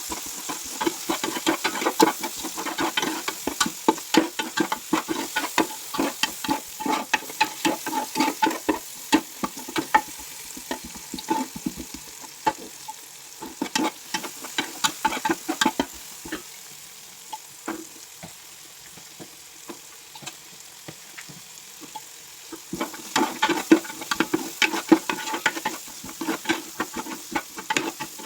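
Fried rice being stir-fried in a pan over a steady sizzle, with a spatula scraping and clicking against the pan. The clicks thin out in the middle, where the stirring mostly pauses, and come thick and fast again near the end.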